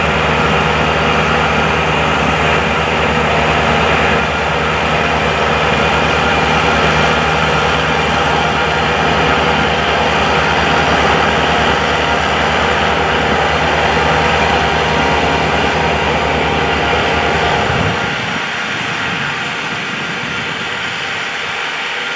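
An engine running steadily under a constant rushing noise. About 18 seconds in, the engine's low hum drops out and the rushing noise carries on a little quieter.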